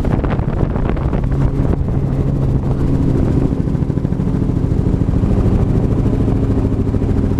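Helicopter in flight, heard from inside the open cabin: a steady, fast rotor chop over the drone of the engine and transmission.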